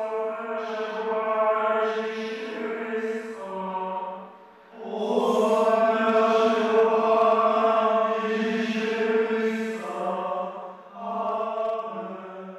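Slow chant-like vocal music of long held notes in three phrases, with short breaks about four and a half and eleven seconds in.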